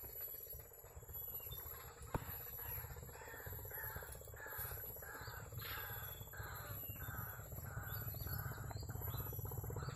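A bird calling over and over, a short harsh call about twice a second, starting about two seconds in, over a low steady rumble. A single sharp click sounds just after two seconds.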